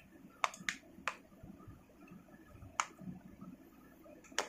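Plastic back cover of an Infinix S5 phone being pried off with a fingernail: a few quiet sharp clicks, three close together near the start, then one in the middle and one near the end, as its clips let go, over faint handling rustle.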